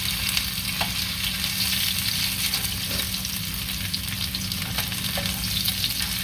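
Shredded-potato patties sizzling steadily in oil in a frying pan, with a few light clicks and scrapes of a spatula as they are turned.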